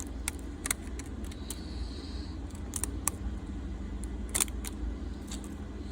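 Scattered light clicks and taps from hands handling a smartphone and its replacement back glass, over a steady low hum; the loudest click comes about four and a half seconds in.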